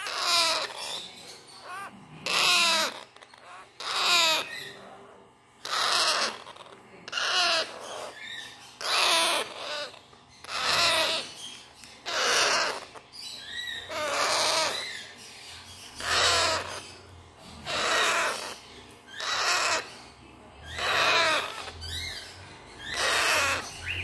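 African grey parrot chicks, still in down, calling over and over with a raspy, wavering call about every second and a half. This is the repeated food-begging call of young parrot chicks.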